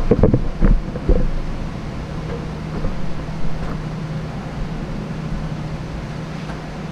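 Steady low mechanical hum, as of a machine running, with a few short knocks or bumps in the first second or so.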